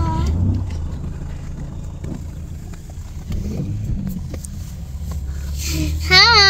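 Low, steady rumble of an idling car. Near the end a child starts singing a wavering note.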